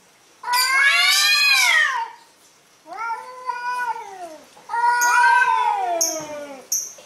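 Cats caterwauling in a face-off: three long, drawn-out yowls, each rising and then sliding down in pitch, the middle one a little quieter. This is the threat yowling of two cats squaring up to each other.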